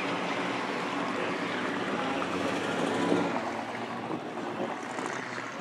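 Wind on the microphone over steady outdoor background noise, with a low hum of engines running somewhere in the pits.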